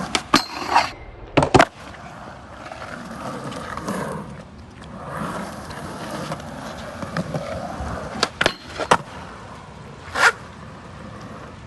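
Skateboard rolling over wet concrete, its wheels hissing on the soaked surface. The rolling is broken by sharp clacks of the board popping and landing: several in the first two seconds, two about eight and a half seconds in, and one near ten seconds.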